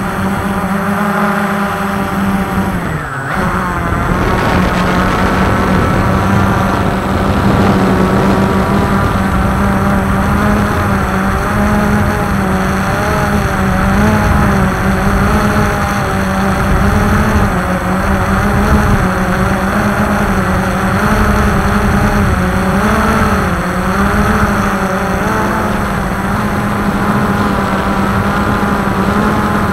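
Walkera QR X350 Pro quadcopter's electric motors and propellers whirring steadily as it hovers and drifts, heard from its onboard camera; the pitch wavers slightly as the motor speeds adjust, with a brief dip a little after three seconds in.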